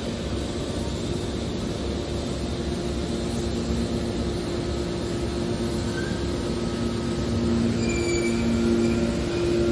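Hydraulic scrap aluminium can baler running: a steady mechanical hum with two low droning tones, growing a little louder about three-quarters of the way through, with faint high squeals near the end.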